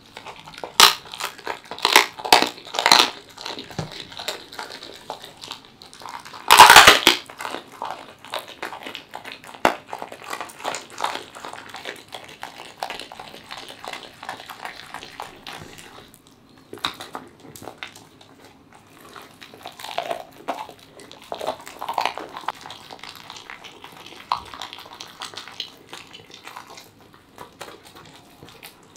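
A Welsh corgi chewing raw chicken: wet crunching and crackling bites. There is a quick run of sharp crunches in the first few seconds and one loudest crunch about seven seconds in, then quieter, sparser chewing.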